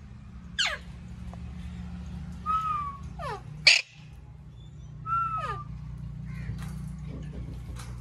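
Indian ringneck parakeets calling: several sharp screeches that sweep steeply down in pitch, the loudest about halfway through, with a couple of shorter whistled notes between them, over a steady low hum.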